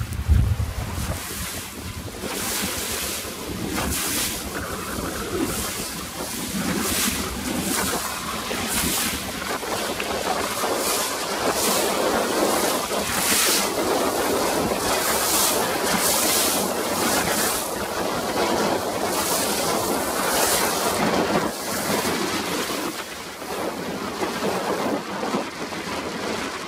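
Strong wind of about 25 knots buffeting the microphone over rough, choppy water. Waves splash and rush in irregular hissing surges, with a heavy low buffet of wind near the start.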